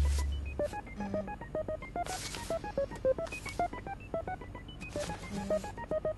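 Background music: a quick stream of short, high electronic notes hopping in pitch, about four or five a second, with a few brief hissing swells.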